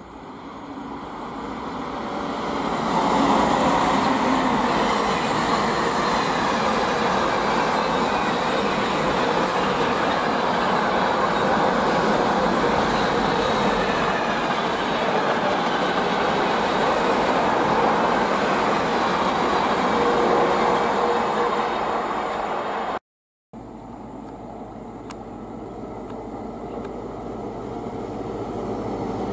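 A container freight train hauled by a Class 88 locomotive passing at speed: the rolling sound of the wagons' wheels on the rails builds over the first few seconds and holds steady. After a short gap in the sound about 23 seconds in, a Class 43 HST diesel power car approaches, growing louder toward the end.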